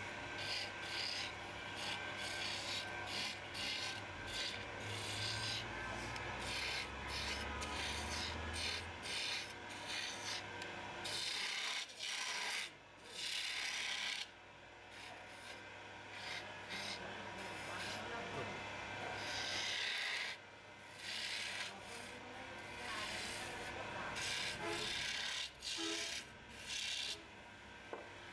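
Wood lathe turning a spindle while a hand-held turning tool cuts into the spinning wood: repeated hissing, scraping cuts of a second or two each, with short pauses between them, over the steady low hum of the lathe.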